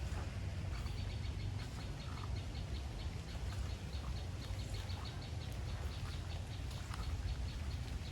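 Rapid, regular chirping from a small animal, short high notes about four a second, over a steady low rumble.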